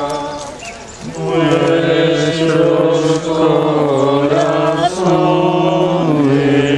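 Latin plainchant sung by a male voice: long held notes that step slowly in pitch, with a short breath about a second in.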